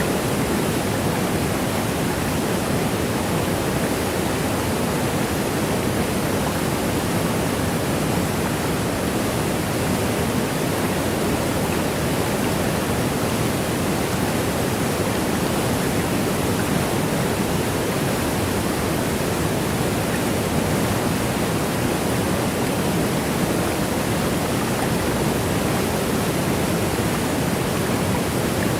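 Waterfall rushing in a steady, unchanging wash of noise.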